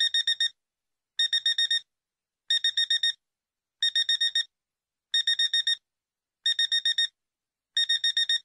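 Digital alarm clock going off: quick groups of about five short, high beeps, a group roughly every 1.3 seconds.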